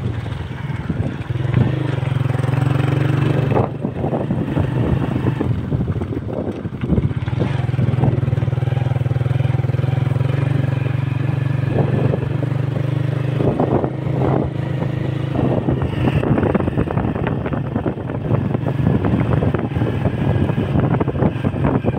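Motorcycle engine running at a steady speed under irregular clatter, its hum easing off in the last few seconds.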